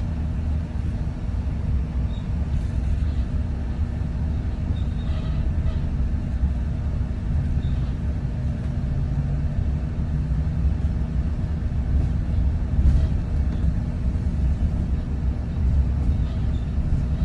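Steady low rumble of a double-decker bus in motion, heard from inside on the upper deck: engine and road noise.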